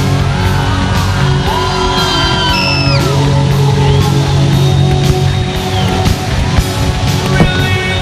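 Loud rock music with a heavy-metal feel.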